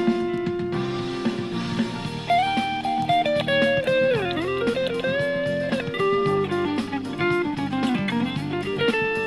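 Electric guitar playing an improvised lead line. It opens on a held note, then runs into a single-note melody with string bends and slides over lower sustained notes.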